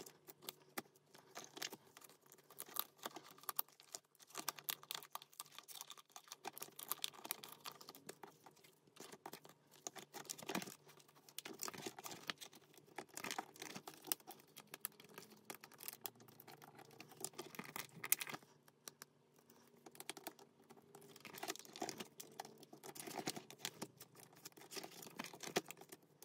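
Photocards and plastic binder sleeves being handled: irregular soft crinkling with small taps and clicks throughout.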